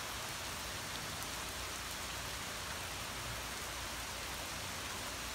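Heavy rain pouring down steadily on a paved driveway, an even hiss with no breaks.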